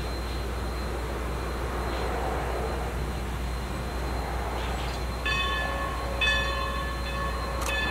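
Steam locomotive with steam hissing from its open cylinder cocks as it starts off. About five seconds in, its steam whistle blows a short blast and then a longer one, several tones sounding together.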